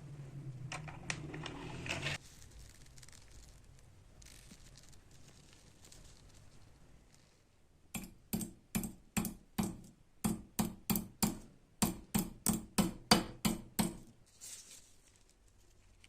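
Antique hand-operated cutting machine being worked: a run of about seventeen quick, even strokes, about three a second, after a short scraping stretch in the first two seconds.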